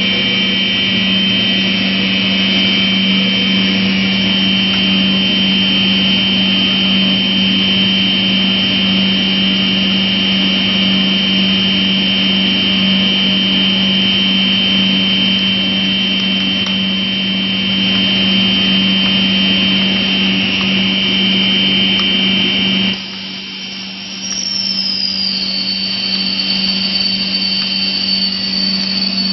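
PU sandwich panel production line machinery running with a steady low hum and a high whine. About 23 seconds in, part of it stops and the sound drops, and a second later a new high whine starts, sliding down a little in pitch and then holding steady.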